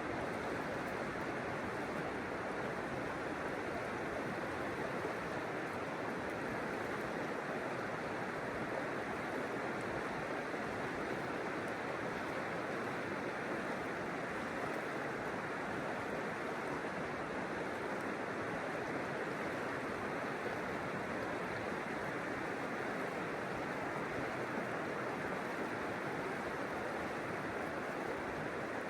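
River water flowing, a steady, even rushing with no change.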